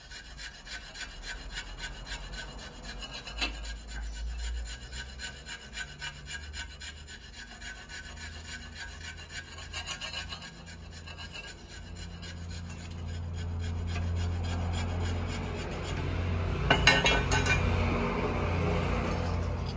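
A part being filed down by hand, rapid scraping rasp strokes, taking off a little more material to bring it to thickness. It grows louder in the second half, with a low steady hum underneath.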